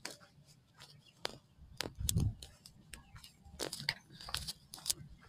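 Footsteps crunching irregularly on dry dirt and dead leaves, with sharp clicks and a heavier thud about two seconds in.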